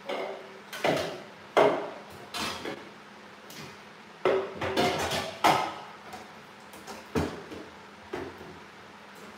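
Kitchen dishes and containers knocking and clinking as things are shifted about: about ten separate knocks at irregular spacing, some with a short ring.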